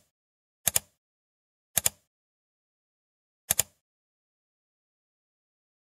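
Three sharp double clicks, each a quick pair of ticks, spaced about a second or more apart with dead silence between them: sound-design click effects for animated on-screen text.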